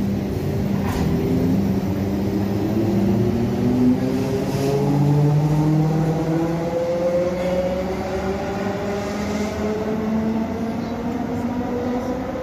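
ÖBB class 4020 electric multiple unit pulling out and accelerating, its traction motors whining in several tones that climb steadily in pitch as it gathers speed, over the rumble of wheels on rails.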